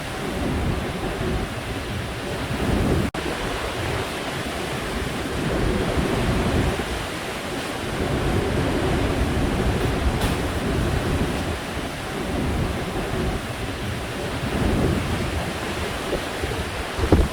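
Typhoon wind and heavy surf: a loud, continuous roar of waves with strong wind buffeting the microphone in uneven gusts.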